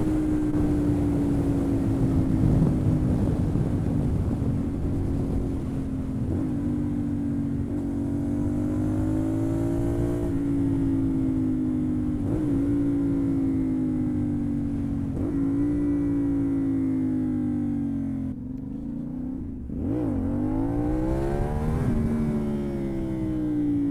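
CF Moto 450NK's parallel-twin engine through a KO Lightning aftermarket exhaust while riding, heard from the rider's seat. The engine note sinks slowly, then climbs again several times; near the end it dips briefly off the throttle and rises again.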